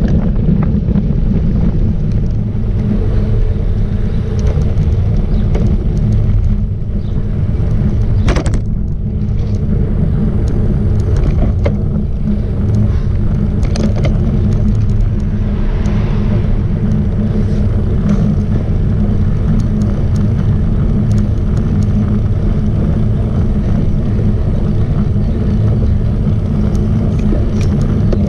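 Wind buffeting the microphone of a camera on a moving road bike, a loud steady low rumble, with scattered small clicks and knocks from the bike on the road.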